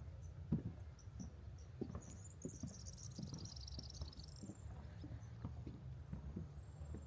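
Footsteps on a wooden boardwalk at a steady walking pace, a dull thud roughly every half second or so. About two and a half seconds in, a bird gives a rapid, high twittering trill lasting a little over a second.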